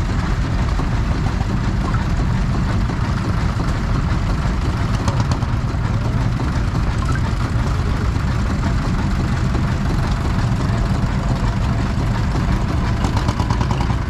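Vintage tractor engines running steadily with a constant low drone.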